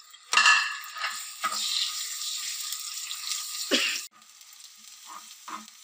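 Ginger-garlic paste sizzling in ghee on a hot tawa griddle while a metal spatula scrapes and stirs it. The sizzle cuts off suddenly about four seconds in, leaving only a few faint scrapes.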